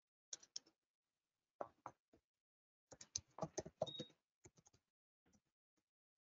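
Faint keyboard typing: irregular bursts of quick keystroke clicks, in four or five short runs with pauses between them.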